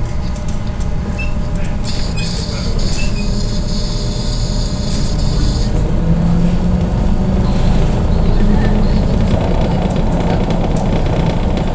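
Belkommunmash BKM 321 trolleybus moving along the street, heard from inside the passenger cabin: a steady low rumble of the running gear and road. A high hiss starts about two seconds in and stops about four seconds later.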